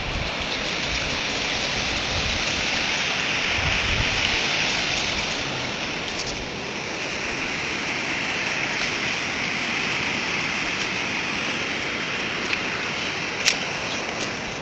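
Floodwater rushing down a wadi in flash flood: a steady, loud roar of water, with a couple of sharp clicks near the end.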